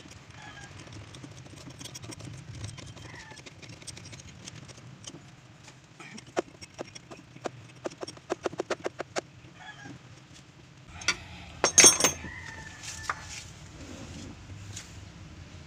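Hand work on the gear shift linkage of a Mitsubishi L300: a run of small metal clicks, quickening to about four a second, then a brief loud metal clatter a little past the middle. Chickens cluck faintly in the background.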